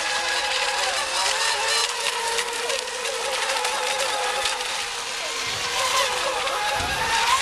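Several electric RC racing boats running together, a mix of high-pitched whines that rise and fall as the boats race and turn.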